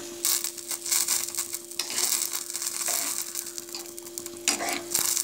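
A metal spoon stirring semiya (vermicelli) boiling in sweetened water in a pan, scraping and swishing in uneven strokes over the bubbling. It is louder about four and a half seconds in.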